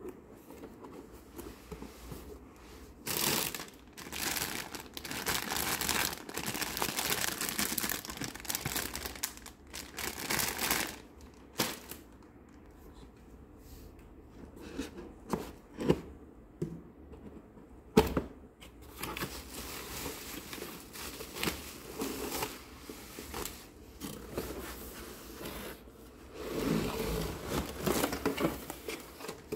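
A toy being unboxed by hand: cardboard box handled and slit open with a small blade, and plastic packaging crinkling and rustling in long stretches, with a few sharp knocks and clicks in between.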